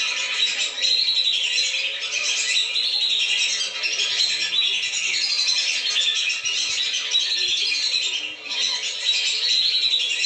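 A flock of lesser whistling ducks (belibis) calling: a dense, continuous chorus of shrill, overlapping whistles, the kind played as a lure to bring the birds down.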